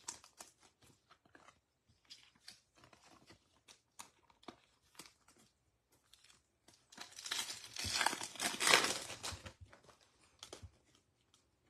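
Trading cards clicking and sliding softly against one another. About seven seconds in, a foil Topps Chrome baseball card pack wrapper crinkles and tears open for about two seconds, the loudest sound.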